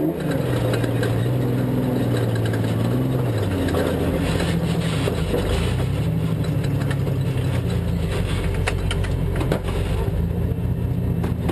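Class 7 desert race truck's engine heard from inside the cab at speed, its pitch rising and falling as it revs up and comes off between shifts. A few sharp knocks and rattles come near the end.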